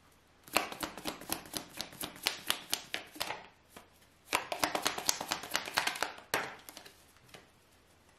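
A deck of fortune-telling cards being shuffled by hand: two runs of rapid papery clicks, the second starting about a second after the first stops.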